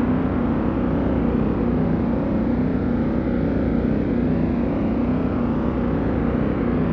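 Retro TV-style 'dizzy' sound effect: a dense, steady drone made of many wavering pitches sweeping up and down together, heaviest in the low range. It is the old television cue for a drug high or a splitting headache.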